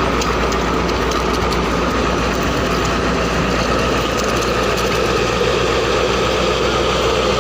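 Heavy diesel engine of a construction machine running steadily at idle, with a constant low rumble.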